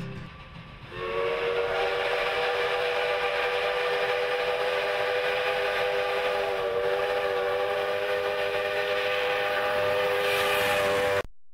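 Steam locomotive No. 45's chime whistle blowing one long blast of about ten seconds, several notes sounding together as a chord over the hiss of steam, starting about a second in and cutting off suddenly near the end.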